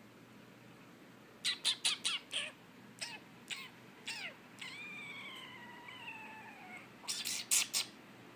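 Small dog yipping and whining: a run of short high yips, several falling in pitch, then one long high whine that slowly falls, then a quick cluster of sharp yaps near the end.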